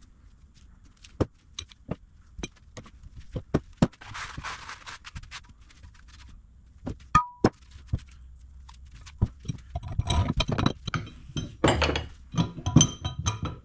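Metal vise parts being handled and set down: a series of separate clinks and knocks, a short scrape about four seconds in, and a denser run of clinking and ringing metal in the last few seconds.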